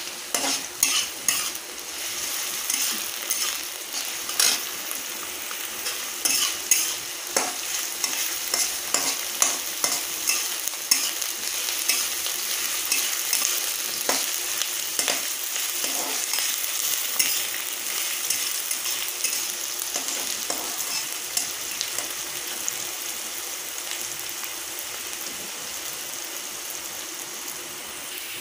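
Chopped onion and chilli frying in hot oil in a kadai, sizzling steadily as the onion browns, with a spatula scraping and knocking against the pan as it is stirred, often once or twice a second. The stirring strokes die away about two-thirds of the way through, leaving the sizzle alone.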